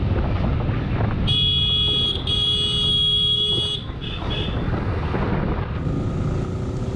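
A vehicle horn honking: two long blasts, the second a little longer, about a second in, then two short beeps. Underneath runs the steady rumble of riding on a motorcycle, with engine and wind noise.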